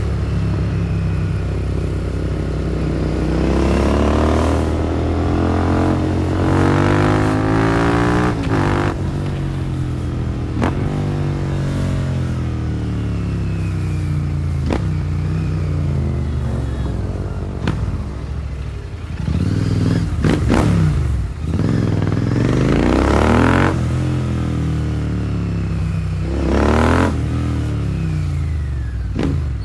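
Royal Enfield Continental GT650's 650 cc parallel-twin, breathing through a Powerage short cone aftermarket exhaust, riding along. The revs climb and drop again and again as it pulls through the gears, with short sharp cracks at several throttle changes. In the last third come a few quick, loud rev blips.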